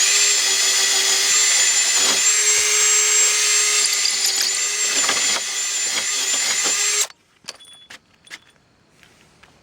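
Battery-powered drill running steadily under load, drilling into fibre-filled concrete, for about seven seconds before stopping suddenly.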